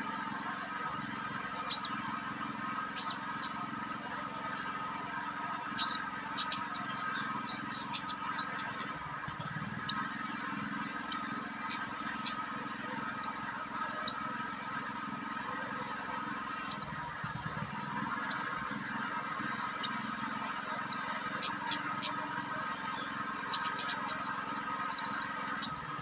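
Caged kemade, a small flowerpecker, calling with short, very high chirps, some single and some in quick runs of several, scattered irregularly over a steady background hum.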